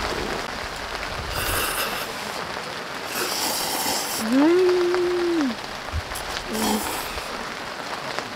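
Steady rain shower falling. About halfway through a short, steady tone slides up, holds and slides back down; it is the loudest sound here. Two brief bright, high sounds come earlier.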